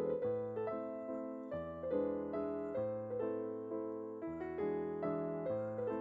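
Background piano music: a steady run of notes over lower held notes, with no frying sound standing out.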